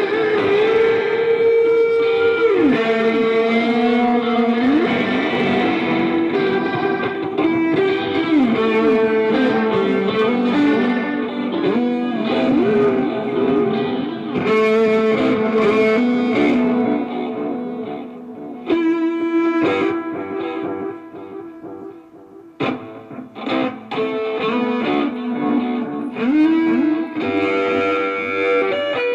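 Live instrumental music on electric guitar run through effects, held notes gliding in pitch. About three-quarters through it drops off briefly, then comes back with short choppy notes.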